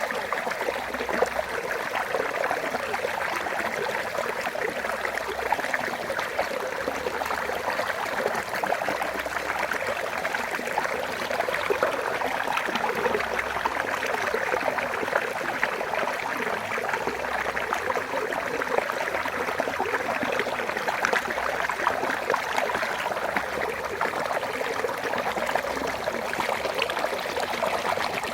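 Water of a small waterfall in a rocky stream, running and splashing steadily over stones.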